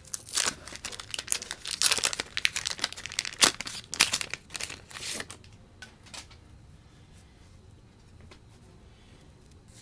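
Waxed-paper wrapper of a baseball card wax pack being torn open and crinkled: a dense flurry of crackling for about five seconds, then only faint handling.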